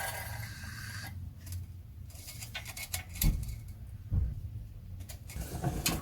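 Hand oil pump being worked slowly to push thick gear oil into a Triumph Stag gearbox: several noisy strokes, with two dull knocks about three and four seconds in.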